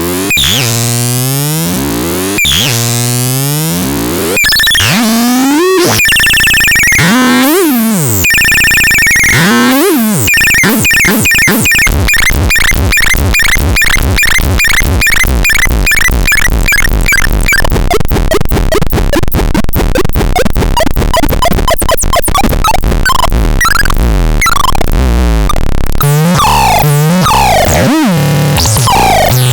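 Synthesized electronic sound effects from a LARPEL C15 in a sound demo. Repeated falling chirps give way to slow rising-and-falling glides, then a long fast pulsing buzz, and sweeping chirps return near the end.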